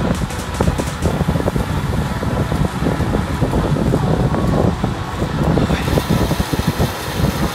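Wind buffeting the microphone of a camera moving at riding speed along a road: a heavy, uneven rumble, with a little more hiss after about six seconds.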